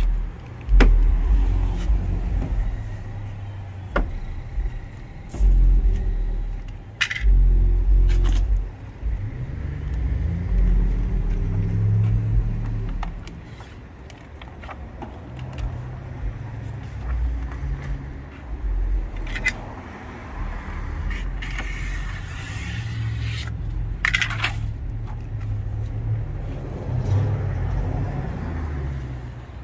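Squeegee scraping and rubbing over the transfer paper of a vinyl decal on a truck door, with a few sharp scrapes, under a loud low rumble that comes and goes.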